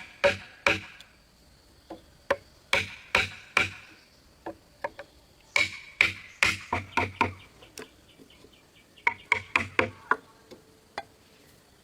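Hand tools striking wood: sharp, irregular knocks in short clusters of a few blows each, with the busiest run about halfway through.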